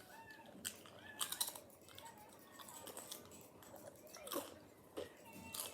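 Potato chips being crunched and chewed close to the microphone, in irregular bites with the sharpest crunches about a second in, about four seconds in and near the end.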